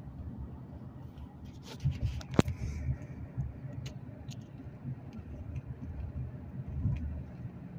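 Steady low rumble of road and engine noise inside a moving car's cabin, with a few sharp clicks, the loudest about two and a half seconds in.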